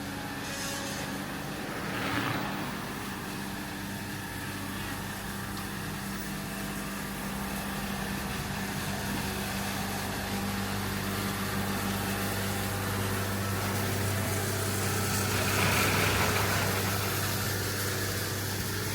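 Street traffic: two vehicles pass, a short one about two seconds in and a louder, longer one near the end, over a steady low hum.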